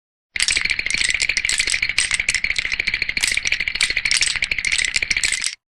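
Cartoon teeth-chattering sound effect: a rapid, rattling clatter of clicks with a bright ringing edge. It starts just after the beginning, runs about five seconds and cuts off abruptly.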